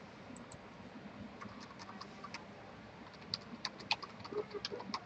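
Faint computer keyboard typing: scattered keystrokes that come quicker in the second half.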